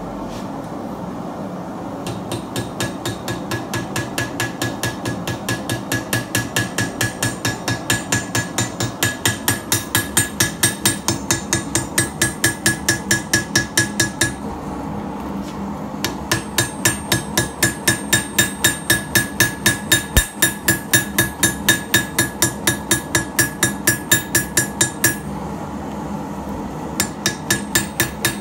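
Hand hammer striking a steel hand punch into red-hot steel on an anvil, rapid even blows at about three a second, each one ringing. The blows come in three runs, starting about two seconds in and pausing briefly twice.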